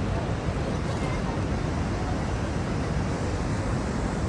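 Steady rushing roar of Niagara Falls' falling water, mixed with wind buffeting the microphone.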